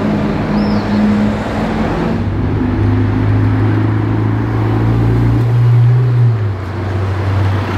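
Ferrari 488 Pista Spider's twin-turbo V8 pulling away at low revs, its note rising slightly and loudest about six seconds in, then easing off as the car goes past. Before it, for the first two seconds, another car's engine idles in traffic.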